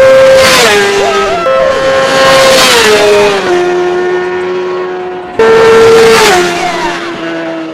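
High-revving sportbike engines passing by fast, three times, each a high steady engine note that drops in pitch as the bike goes past. The second pass starts about a second and a half in, the third just past five seconds.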